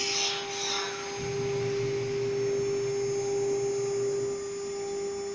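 CNC router spindle whining at one steady pitch while its end mill cuts aluminum-plastic composite panel, the cutting hiss strongest in the first second. A lower hum joins about a second in and fades out near four seconds.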